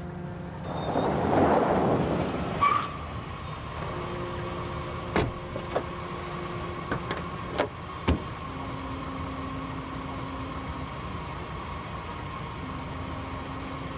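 A car at night: a swell of noise in the first couple of seconds, then a handful of sharp clunks from car doors and the trunk being opened, over a faint steady hum.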